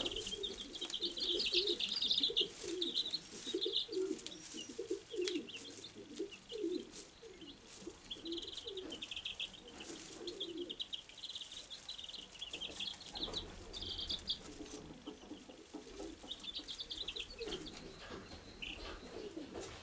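Wyandotte bantam chicks peeping in bursts of short, high chirps. A lower bird call wavers underneath, mostly in the first half.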